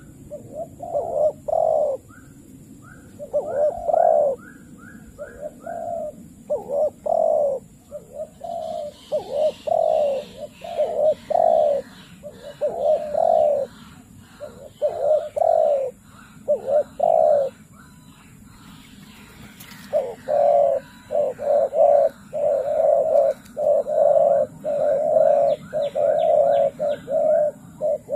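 Doves cooing in quick runs of short coos, with a higher, fast twittering from other birds joining about a third of the way through.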